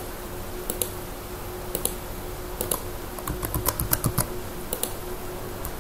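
Computer keyboard keys being pressed in short, irregular runs of clicks as a password is typed, over a faint steady hum.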